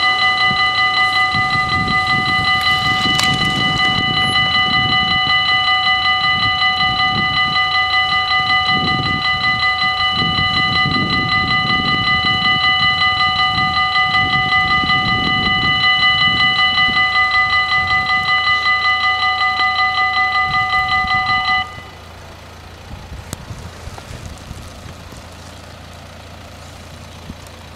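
Level crossing bells ringing rapidly and without a break, a high ringing with a fast pulse, as the crossing closes. They cut off suddenly about three-quarters of the way in, once the barriers are down. A low rumble runs under the ringing in the first half.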